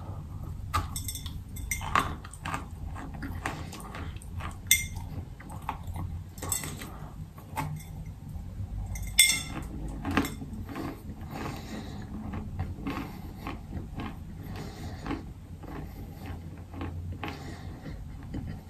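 Close-up crunching and chewing of a bar of clay chalk (chalk mixed with clay), a dense run of small dry crunches with a few louder ones, over a low steady hum.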